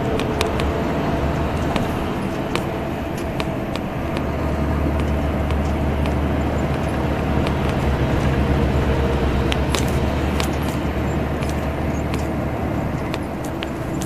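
Salutaris bus 13500's diesel engine running steadily at highway speed, a deep low drone that swells a little about halfway through and eases near the end, with scattered light clicks and rattles over it.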